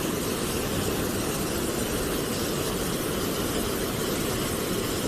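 Floodwater rushing steadily, swollen by heavy rain.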